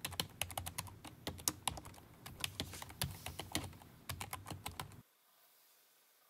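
Typing on a computer keyboard: a quick, irregular stream of key clicks that stops suddenly about five seconds in.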